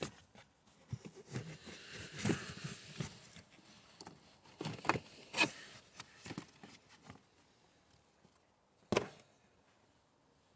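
Fabric battery insulation blanket being pulled off and handled, rustling and scraping against the plastic battery case with a run of small knocks and clicks. One sharper knock comes about nine seconds in.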